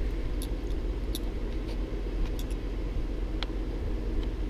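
Steady low hum of a room fan or air-conditioning unit, with a few faint light clicks scattered through it.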